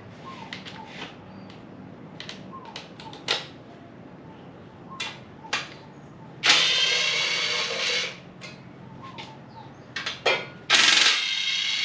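An impact wrench hammering on 13 mm bolts in two bursts, one of about a second and a half near the middle and one of about two seconds near the end, with a few short clicks and knocks in between.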